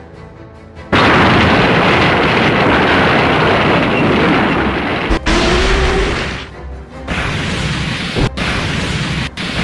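A loud, noisy blast-like sound effect, dubbed over soundtrack music, starts suddenly about a second in and runs for about four seconds. After a brief dip it resumes near the end, broken by several abrupt cut-offs.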